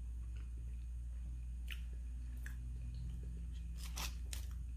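Quiet chewing of a soft, syrup-soaked kalo jam sweet. A few light clicks come from the spoon, with a cluster about four seconds in as it goes back to the box of sweets. A steady low hum runs underneath.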